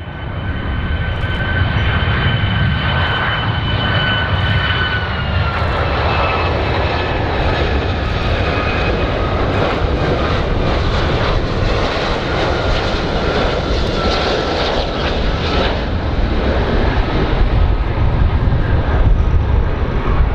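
Boeing 757 airliner on landing approach, its two jet engines running with a steady low rumble and a thin whine that drops in pitch about five seconds in and again a couple of seconds later.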